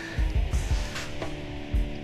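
Background music with guitar over a few light knocks and clicks, as of small parts being moved about on a workbench.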